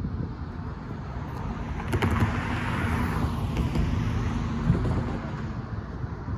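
A car driving by over the railroad crossing, its engine and tyre noise swelling and then fading, with two sharp knocks along the way.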